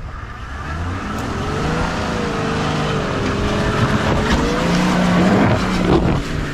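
Toyota LandCruiser 80 Series engine revving under load as the four-wheel drive drives up and out of deep mud ruts over recovery boards, the tyres churning in the mud. It grows louder toward the end as the revs rise.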